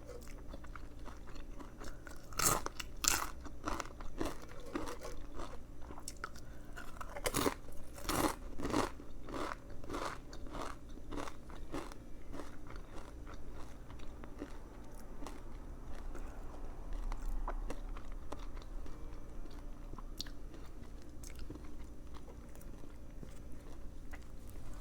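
Close-up eating sounds of a Subway veggie patty footlong sandwich: crunchy bites in two clusters, a few seconds in and again about a third of the way through, then quieter chewing.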